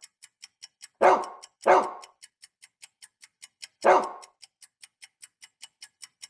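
A dog barking three times, two barks close together about a second in and one more near four seconds, over a steady faint ticking about four times a second.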